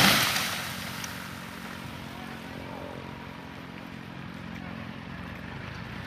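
The crash of a freshly felled tree dies away in the first second, leaves and branches settling. A chainsaw then idles steadily.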